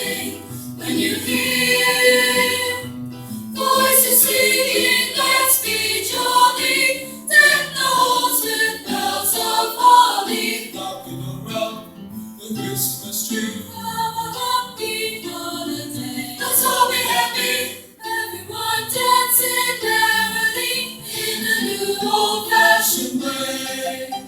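Junior high school choir singing an upbeat Christmas song with musical accompaniment.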